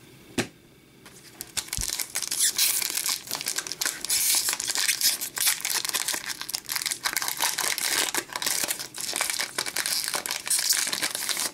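Foil wrapper of an Upper Deck Series One hockey card pack crinkling as it is handled and opened, a dense high-pitched crackle that starts about a second and a half in.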